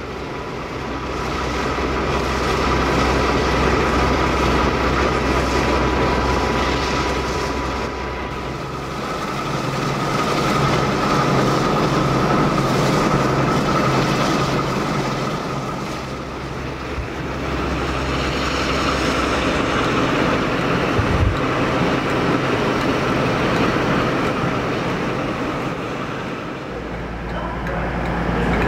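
Heritage diesel locomotives idling at a standstill: a steady engine rumble with a faint steady whine, swelling and easing a little every several seconds.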